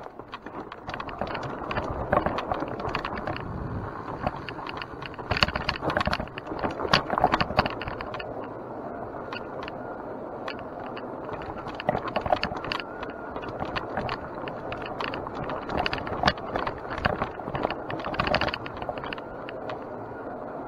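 Mountain bike rolling over a dirt trail: steady tyre noise with the chain and bike rattling and clattering over bumps, rougher in several patches.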